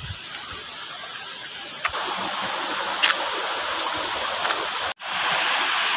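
Waterfall and river water rushing steadily, a little louder from about two seconds in, with a momentary dropout about five seconds in.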